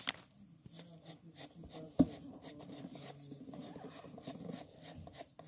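Graphite pencil scratching lightly on paper in quick, short shading strokes, with one sharp tap about two seconds in.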